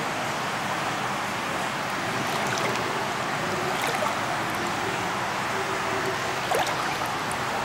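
Indoor swimming pool water splashing and lapping in a steady wash of noise, with a few small splashes about a third of the way in, halfway through and near the end.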